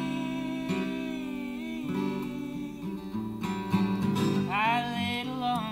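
Two acoustic guitars strumming chords in an instrumental break of a folk-pop song, with a sung note held over the opening and a wordless sung phrase near the end.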